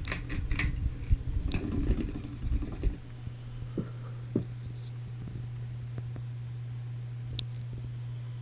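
Small hugger ceiling fan motor humming steadily. For the first three seconds it is drowned out by irregular rattling and clicking, and a few single clicks follow later, one sharp one near the end.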